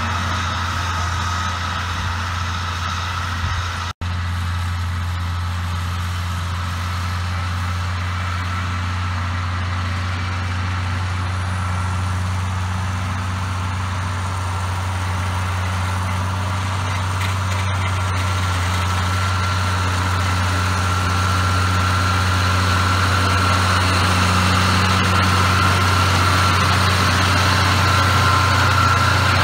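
A John Deere 4250's six-cylinder diesel engine runs steadily under load while the tractor drives a trailed mower through standing grass, with a steady high whine over the engine note. The sound cuts out for an instant about four seconds in, and grows louder near the end as the tractor comes close.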